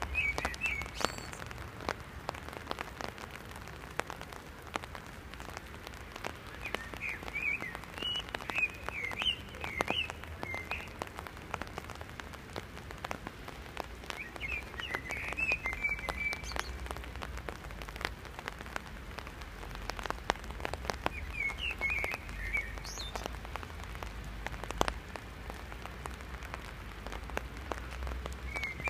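Steady rain, with many close drop ticks on an umbrella overhead. A bird sings a short twittering phrase about every six or seven seconds, five times in all, the one at about seven to ten seconds in the longest.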